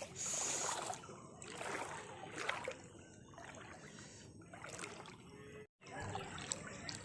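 Floodwater sloshing and splashing in irregular surges, with small clicks, cut by a brief total gap about three quarters of the way through.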